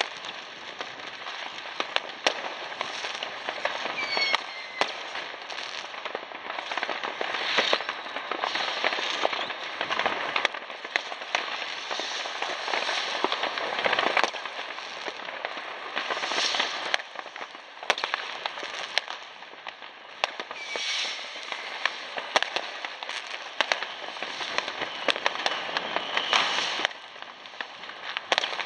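Many New Year's fireworks, rockets and firecrackers, going off at once: a continuous crackle with frequent sharp bangs and a few short whistles.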